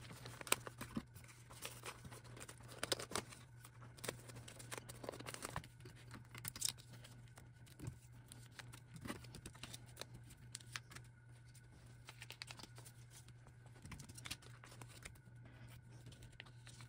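Faint handling of photocards and clear plastic binder sleeves: soft plastic rustling and scattered light taps and clicks as cards are slid into the pocket pages and the page is pressed flat, over a low steady hum.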